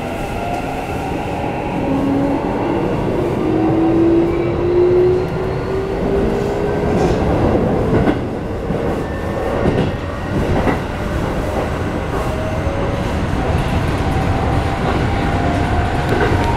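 Keikyu New 1000 series train's Mitsubishi IGBT-VVVF inverter whining in rising tones as the train pulls away and gathers speed, over the steady rumble of the running gear, heard inside the passenger car. A couple of brief knocks from the wheels come midway.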